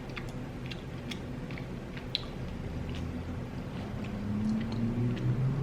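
Close-miked chewing and biting: soft, wet mouth clicks and smacks of a person eating. Near the end a low hum rises in pitch underneath.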